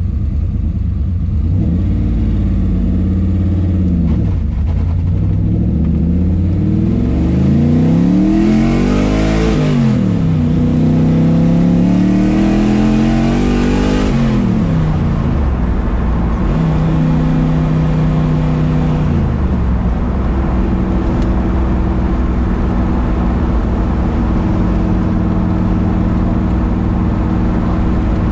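Turbocharged LS6 V8 in a Porsche 914, heard from inside the cabin while accelerating: the engine note rises and falls several times as the revs climb and drop. It is loudest in a long pull about halfway through, then settles into a steady cruise.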